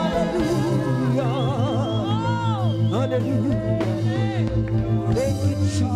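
Gospel music: a woman singing melismatic runs with a wide vibrato over sustained backing chords.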